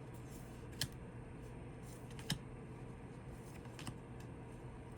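Tarot cards being handled and flipped one by one, giving a few light clicks about a second and a half apart over a faint steady room hum.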